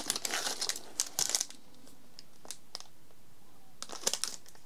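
Packaging being handled as a small accessory pouch is opened and its contents taken out: crinkling rustles and light clicks through the first second and a half and again near the end, with a quieter stretch between.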